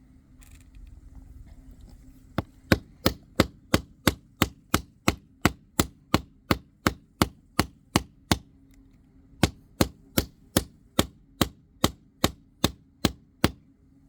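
Rapid, evenly spaced chopping blows, about three a second, striking into a plastic screwdriver handle to split it apart: a long run of strikes, a pause of about a second, then a second run.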